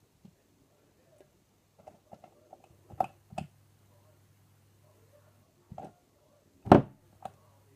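Sticky homemade slime squished and pulled by hand: scattered short wet clicks and pops, the loudest about three-quarters of the way through.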